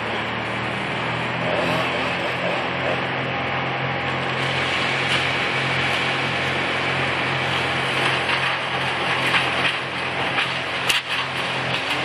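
Chainsaw engine idling steadily, with no rise in pitch from cutting. A single sharp knock near the end.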